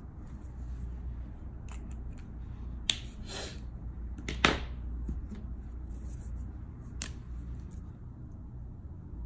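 Copic alcohol markers being handled, put down and picked up: three sharp plastic clicks about two seconds apart, the middle one loudest, over a low steady hum.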